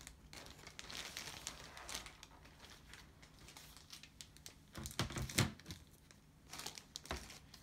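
Packaging rustling and crinkling as it is handled, with small clicks throughout and a few sharper knocks about five seconds in and again near the end.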